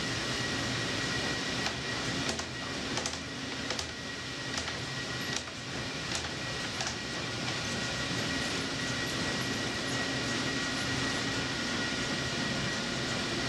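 Aker Solutions tunnelling machine's rotating cutter head grinding into a rock face: a steady mechanical din with a high whine, broken by a scatter of sharp cracks in the first half.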